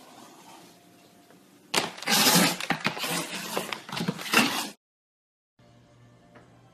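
A cat and a dog scuffling: about three seconds of loud, noisy thrashing with knocks and clatter, cutting off abruptly. After a short silence a faint steady hum follows.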